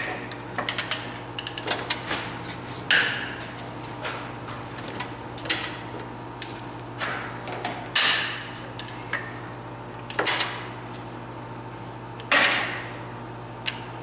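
Hand ratchet clicking in quick runs and steel tools clanking against the engine while bolts on the cylinder head are worked loose. Several louder clanks, each with a brief ring, come about every two to four seconds.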